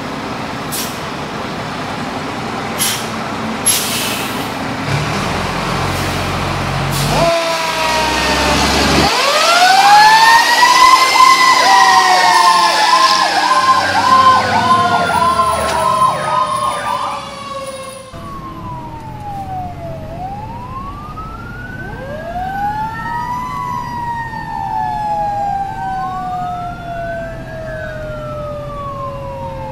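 Fire apparatus engines running with a few clicks, then sirens start about seven seconds in, rising and falling in a wail with a fast warbling yelp as the vehicles pull out. After a sudden cut, the siren wail goes on more faintly from inside a fire engine's cab on the road.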